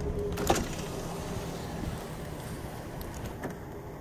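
Low, steady rumble of a Chevy high-top van's engine heard from inside the cabin, with one sharp click about half a second in and a fainter one near the end.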